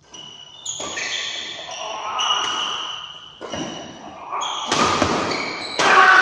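Doubles badminton rally: rackets striking the shuttlecock with sharp cracks and players' shoes squeaking on the court floor in short, steady high squeaks. Players' voices shout near the end.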